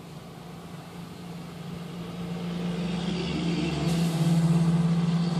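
A steady, low engine drone grows louder over about four seconds and eases slightly near the end, like something approaching and passing.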